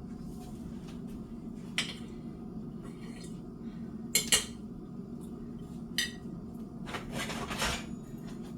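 Metal kitchen utensil clinking against cookware: four sharp clinks, two of them in quick succession midway, then a scrape of about a second near the end, over a steady low hum.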